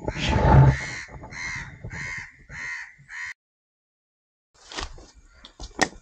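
A crow cawing about five times in quick succession, the first call loudest. After a short silent gap come a few sharp knocks and scrapes as a gloved hand grips the coconut trunk.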